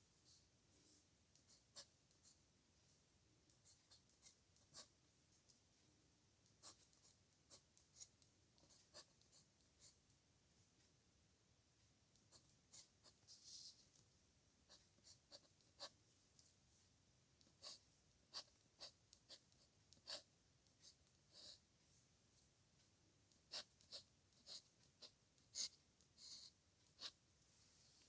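Pen nib scratching on paper in faint, short, irregular strokes as characters are written by hand, with a few longer drawn-out strokes in between.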